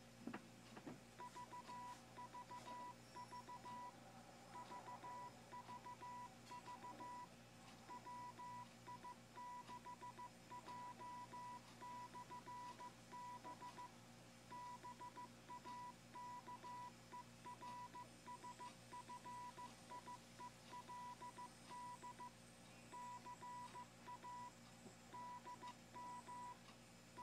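Faint Morse code tone at one steady pitch from a Realistic HTX-100 10-meter transceiver keyed by an ID-O-Matic keyer, sending its propagation beacon identification: three sets of V's followed by the call WI6J/B, Bakersfield CA and grid square DM05.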